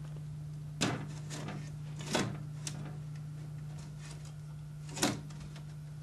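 Metal clicks and clunks from a hard drive and its sliding drive rails being fastened and handled in a computer case: three sharper knocks about a second in, about two seconds in and near the end, with lighter ticks between, over a steady low hum.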